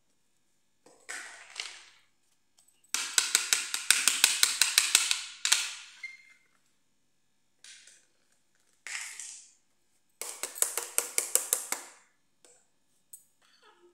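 Hard plastic toys knocked and slid on a tile floor. There are two bursts of rapid clattering ticks, a few seconds in and again near the end, with a few shorter knocks and scrapes between them.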